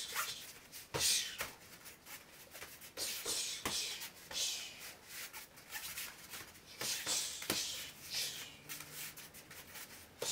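Gloved punches and kicks landing on a partner's guard: a few sharp smacks, with bare feet shuffling and scuffing on foam floor mats between them.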